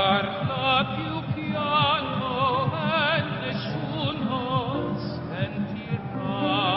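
Background music: operatic singing with a wide vibrato over a sustained orchestral backing.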